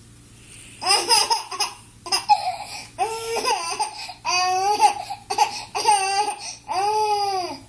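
Baby laughing in a string of high-pitched squealing giggles, starting about a second in, the last one a long rising-and-falling squeal.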